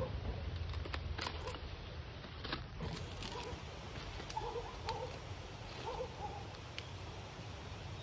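A small knife cutting and snapping broccoli stalks and leaves, giving a few sharp snaps in the first few seconds. From about four seconds in, faint short pitched animal calls come and go in the background.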